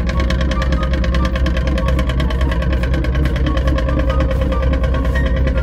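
A ferry's diesel engine running steadily: a loud, even drone with a deep rumble and a fast, regular throb.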